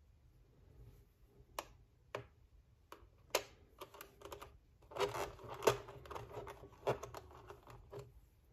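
Small plastic figure parts being handled and set into a clear plastic blister tray: scattered sharp clicks and plastic taps, thickening into a busy run of clicking and crinkling about halfway through.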